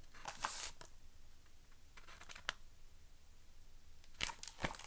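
Faint paper rustles and handling noises from a hardcover picture book held open in the hands, in a few short bursts: about half a second in, around two and a half seconds, and twice near the end.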